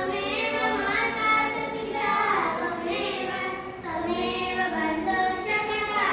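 Children's voices singing a devotional song in sustained, melodic phrases.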